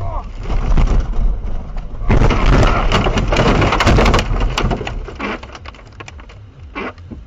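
A car ploughing off the road into deep snow and brush: a loud, dense crashing and scraping of snow and branches against the body, heaviest from about two seconds in until past four seconds, then dying down to scattered knocks.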